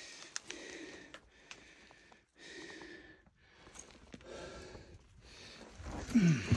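A man breathing hard in a series of heavy breaths close to the microphone, winded from scrambling up steep rock ledges. A louder voiced grunt comes near the end.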